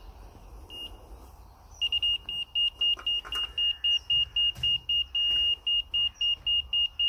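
Laser receiver on a levelling staff beeping in a single high tone: a couple of lone beeps, then a fast run of about four beeps a second from about two seconds in, held as a steady tone for half a second near five seconds in. The beep rate shows where the receiver sits against the rotating laser's beam, and the steady tone marks it on grade.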